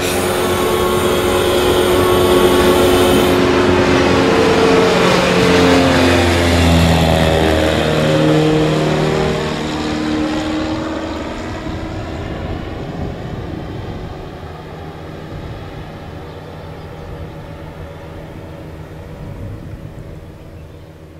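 Two microlight aircraft flying low past, their engines and propellers droning together. The pitch drops about halfway through as they go by, and the sound then fades away as they fly off.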